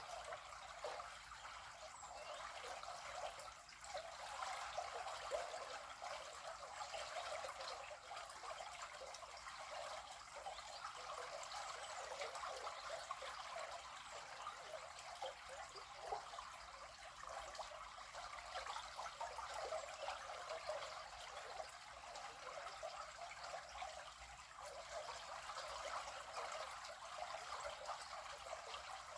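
River water flowing and trickling, a steady, even babble.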